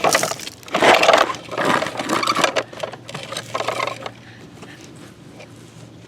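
Sand and dirt spilling and scraping from a toy front loader's steel bucket: irregular rustling bursts for about four seconds, then only faint background.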